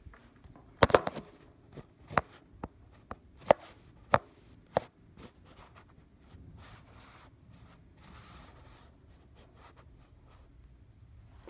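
Handling noise from a phone camera being set in place: a cluster of loud knocks just under a second in, then single sharp clicks and taps spread over the next four seconds, followed by faint rustling.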